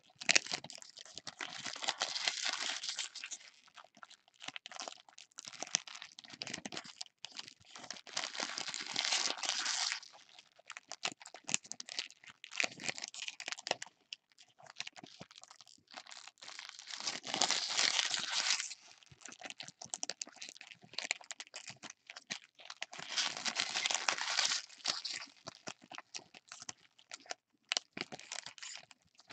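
Trading-card pack wrappers crinkling and tearing as packs of football cards are ripped open and handled, in repeated bursts of a few seconds with quieter rustling and clicks between.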